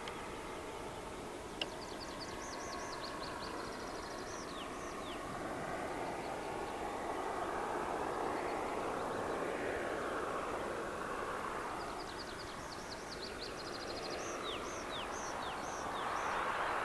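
Pipistrel Velis Electro electric plane on approach to land: its electric motor and propeller make a soft hum and whoosh that swells and fades. A songbird sings a short phrase of high descending notes twice, a couple of seconds in and again near the end.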